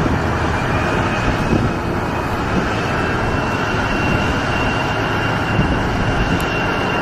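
A steady, loud vehicle engine drone, with a faint high whine held through it.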